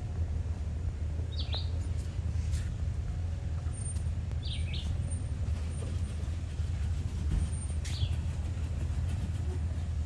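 Toyota 4Runner's 4.0-litre V6 running low and steady as the truck crawls over trail terrain, a deep continuous rumble. Three short high chirps come through over it, about a second and a half in, near the middle and near the end.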